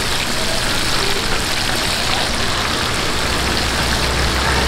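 Flour-coated pork rolls deep-frying in a wide wok of hot oil, the oil bubbling and sizzling steadily, with a low steady hum underneath.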